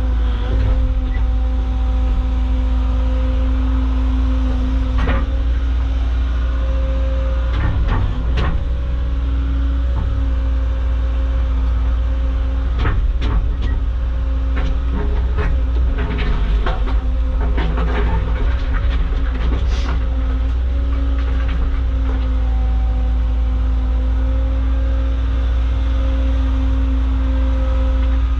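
Caterpillar excavator's diesel engine running steadily, heard from the cab, with its hydraulics working as it digs and swings. Scattered clunks and knocks of heavy rock in the bucket and dropping into the dump truck, mostly between about 5 and 20 seconds in.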